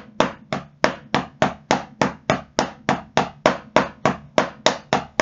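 Drumsticks striking a rubber drum practice pad in an even stream of sharp taps, about three a second, in a double-stroke exercise where each second stroke comes from the controlled bounce of the first.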